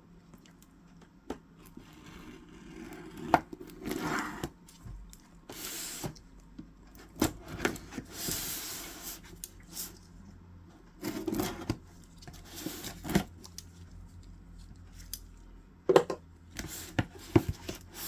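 A knife cutting through packing tape on a cardboard box, with stretches of tape tearing and cardboard scraping and rubbing, and scattered knocks and clicks as the box is handled and opened.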